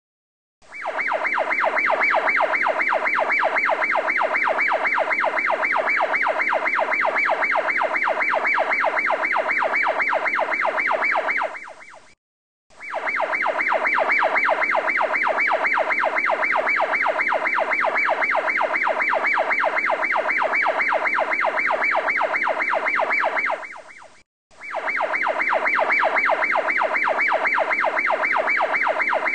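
Steady, rapidly pulsing siren-like electronic tone, in three long stretches broken by brief silences about 12 and 24 seconds in.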